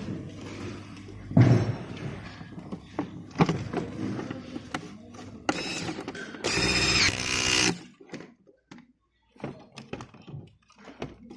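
Knocks and clunks of parts being handled, with a louder thump about a second and a half in and about two seconds of scraping and rattling past the middle.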